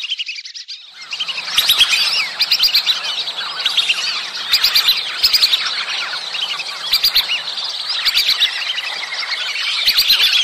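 A flock of whistling ducks giving their mating-season calls: a dense, continuous chorus of many high, thin whistled chirps. There is a brief lull just after the start.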